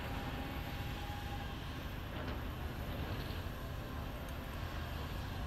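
CAT wheel loader's diesel engine running as it pushes snow with its plow blade, a steady low rumble.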